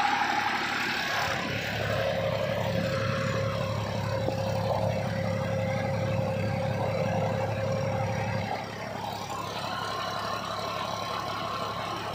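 Massey Ferguson 246 DynaTrack 4WD tractor's diesel engine running steadily under load while it drives a rotavator through wet, heavy soil. The deep engine drone eases off slightly about eight and a half seconds in.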